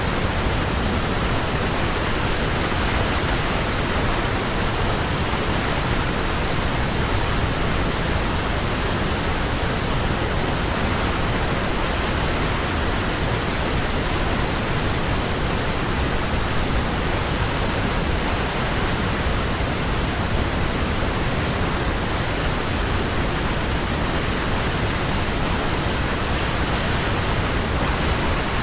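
Waterfall: water falling and rushing in a steady, unchanging hiss.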